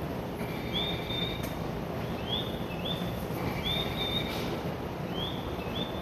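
Electronic bird-chirp guidance sound of a Japanese station platform, the chirping that marks the stairs for visually impaired passengers: short rising two-note chirps repeating about every second and a half. Under it runs a steady low rumble of station and train noise.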